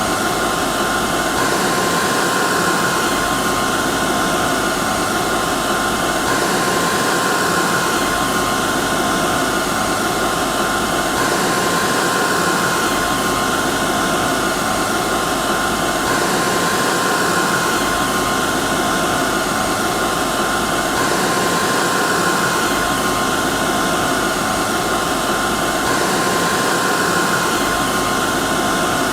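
Hair dryer running steadily: a constant whooshing hiss of blown air with a steady whine over it, loud and unbroken. A faint pattern in the sound repeats about every five seconds.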